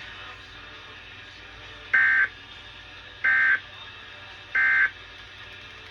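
Emergency Alert System end-of-message data tones: three short, identical bursts of SAME digital screech, about a second and a quarter apart, signalling the end of the broadcast warning.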